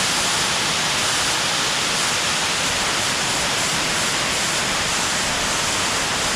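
A waterfall: a steady, loud rush of falling water, unbroken throughout.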